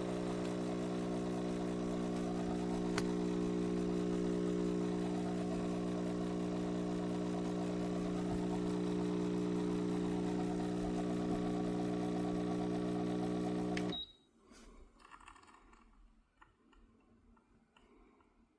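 HiBREW H10A espresso machine's pump buzzing steadily while pulling a shot, then cutting off suddenly about fourteen seconds in. A few faint clicks follow.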